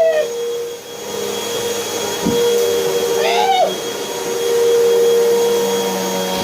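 Vacuum cleaner running with a steady motor whine and rush of air, with a brief rising-and-falling squeal about three seconds in and a short knock a little after two seconds.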